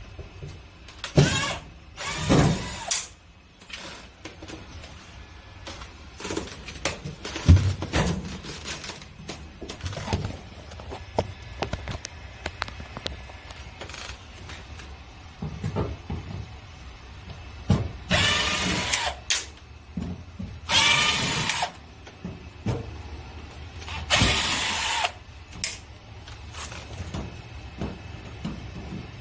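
Cordless power drill running in short bursts of about a second each, the motor pitch sweeping as it spins up and bites, with clatter and knocks in between, as screws are driven out of a metal panel.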